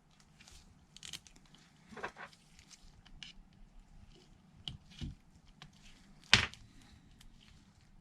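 Small handling noises of thin double-sided tape being laid on a phone frame: faint rustles and crinkles, with one sharp click about six seconds in.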